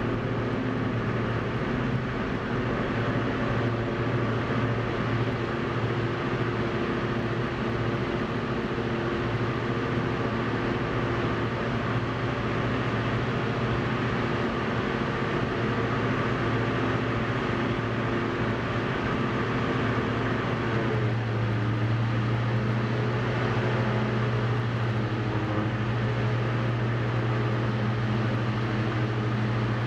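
Diesel engine and propeller of a Cessna 172 running steadily, heard inside the cockpit. About 21 seconds in, the engine note shifts and settles at a new steady pitch, as with a change of power setting.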